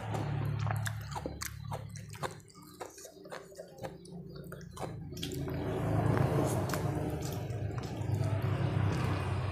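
Close-up eating sounds: wet, sticky clicks and smacks from hand-eating rice and instant noodles and chewing, with many small clicks in the first half. A mouthful of noodles is slurped near the end, over a low steady hum.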